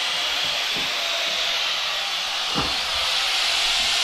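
A steady, loud rushing hiss, with a faint knock just under a second in and another at about two and a half seconds.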